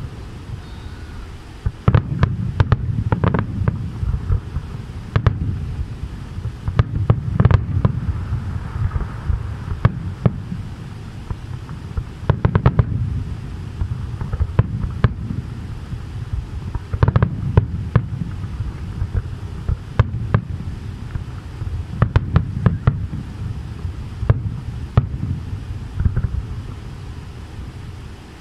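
Aerial fireworks shells bursting in an irregular, often rapid series of sharp bangs, with a continuous low rumble between them.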